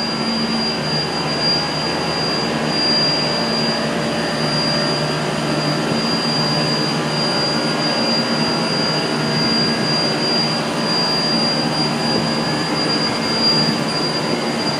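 McQuay rooftop air-conditioning units, about 40 tons each, running: steady fan noise with a low hum and a thin, constant high-pitched whine.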